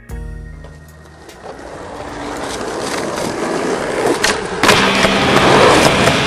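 Skateboard wheels rolling on asphalt: the rumble builds steadily from about a second in as the board gathers speed, with a couple of sharp clicks and a jump to louder rolling a little past halfway.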